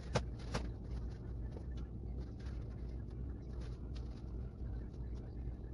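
Paper towel patting and rustling against raw spare ribs: soft scattered taps and rustles, with two sharper clicks in the first second, over a low steady hum.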